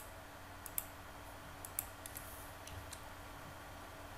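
A handful of short, sharp clicks from a computer mouse and keyboard, spaced irregularly and mostly in the first three seconds, over a faint steady low hum.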